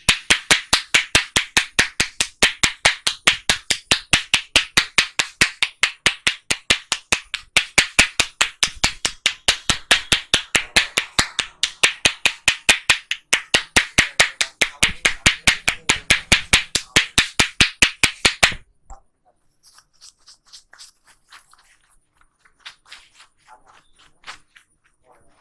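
A barber's hands slapping in a fast percussive massage, about four sharp, even strikes a second, stopping abruptly about 18 seconds in. Faint light taps and rubbing follow.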